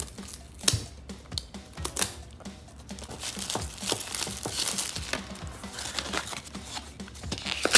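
Cardboard box and plastic packaging being opened by hand: scattered taps and clicks, with a dense crinkling rustle from about three seconds in, and a sharp click near the end.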